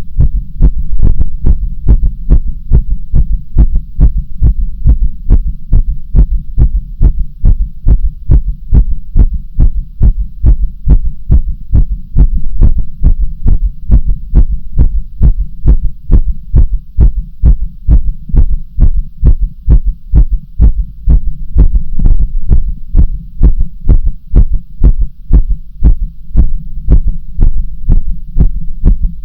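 A person's heartbeat: a steady, even rhythm of deep thuds that keeps a quick, regular pace.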